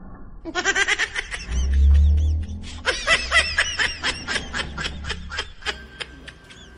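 Laughter in quick, repeated bursts, starting about half a second in, with a low rumble around two seconds in.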